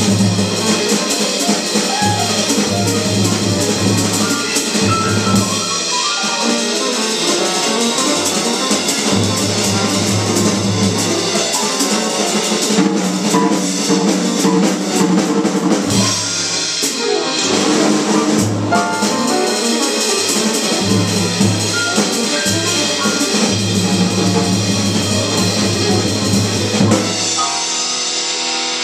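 Live jazz trio of piano, saxophone and drum kit playing, cymbals shimmering throughout. Near the end the low notes drop out and the music thins to a ringing final chord.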